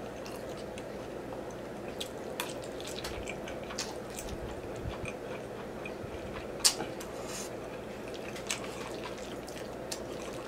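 Wet eating sounds of spaghetti in meat sauce: a mouthful slurped and chewed, with a few short sharp clicks, the loudest about two-thirds of the way through, over a faint steady hum.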